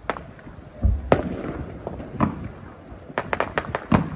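Aerial fireworks bursting: a low thud and a sharp bang about a second in, another bang after two seconds, then a quick run of about five cracks and a heavier bang near the end.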